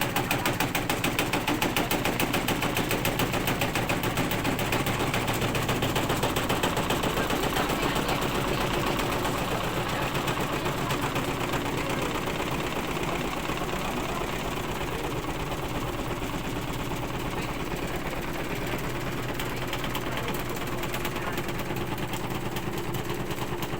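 Washing machine spinning and vibrating violently, knocking and rattling in a rapid, steady beat that eases slightly after about eight seconds.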